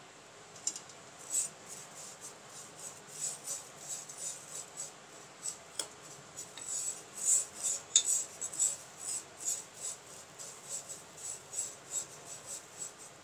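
Wooden spoon stirring vermicelli and grated coconut as they fry in ghee in a non-stick pan: a run of short rasping scrapes, two or three a second, as the vermicelli is toasted toward light brown.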